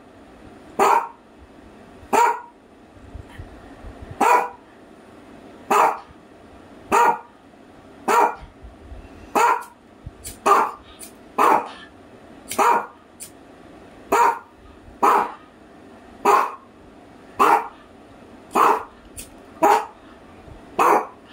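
Dog barking steadily and repetitively: single loud barks, about one every second or so, around seventeen in a row without a break.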